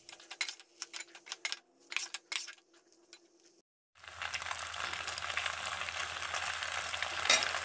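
A metal spoon scraping and clinking against an aluminium pot as boiled macaroni is stirred into fried coconut chammanthi. After a brief gap about halfway through, the pot sizzles steadily on the stove, with one sharper knock of the spoon near the end.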